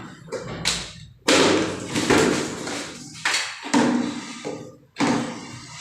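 A series of hard knocks and clunks, about half a dozen, each trailing off briefly: toilet flush-tank fittings being handled and worked.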